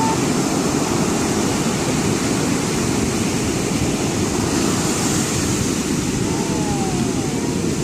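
Ocean surf breaking and washing up a sandy beach: a loud, steady rush of water.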